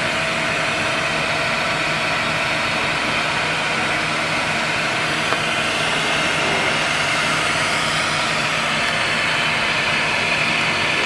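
Mondial Pack MV100 Super Stabilo coffee-bag packaging machine running steadily: a continuous mechanical hiss and hum, with one small click about five seconds in.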